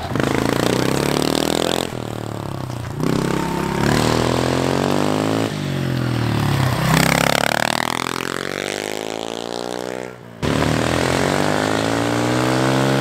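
Honda CRF110 pit bike's small air-cooled four-stroke single revving hard as it is ridden, its pitch climbing in a gear, then dropping away when the throttle closes or the rider shifts, over and over. Near the ten-second mark it cuts out briefly, then picks up and climbs again.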